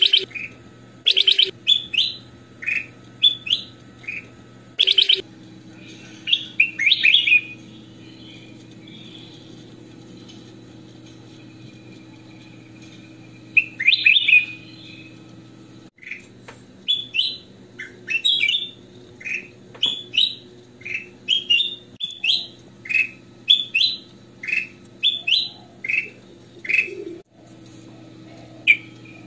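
Caged ruby-throated bulbul (kutilang emas) singing: bursts of short, clear, rapidly repeated whistled notes, with a pause of several seconds around the middle. A steady low hum runs underneath.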